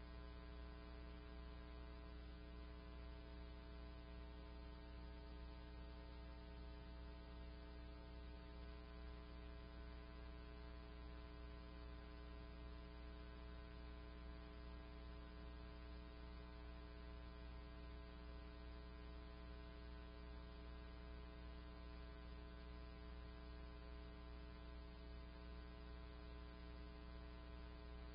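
Faint, steady electrical hum: a low tone with a long stack of even overtones, unchanging throughout, with nothing else heard.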